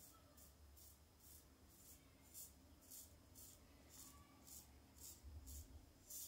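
Double-edge safety razor with a Gillette Rubie blade scraping through lathered stubble in short, quick strokes, about two a second, on a second pass.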